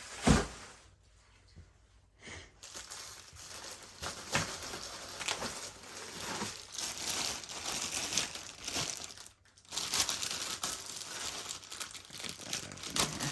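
A single sharp knock, then, from about two seconds in, steady crinkling and tearing of expanding-foam packing and its plastic as it is pulled apart by hand.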